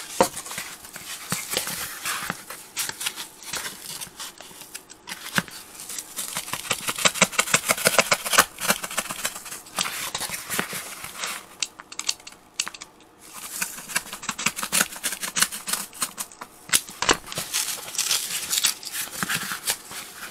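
Knife cutting a hole through the fibrous felt of a car's engine-bay side cover: a long run of rapid crackling, scratchy strokes with a few short pauses.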